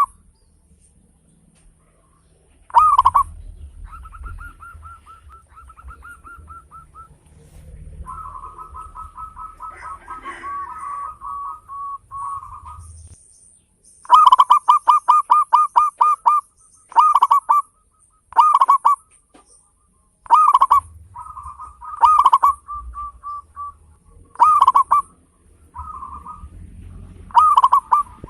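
Zebra dove (perkutut) cooing: loud, separate staccato coos, with a fast run of about eight notes near the middle. Softer, quicker runs of cooing notes fill the gaps between the loud calls.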